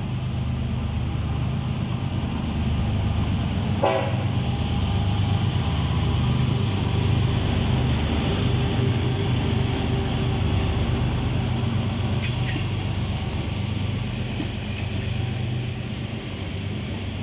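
A diesel freight locomotive passes close by with a steady low engine rumble that swells as it goes past, followed by the rolling noise of covered hopper cars. There is a single short toot about four seconds in.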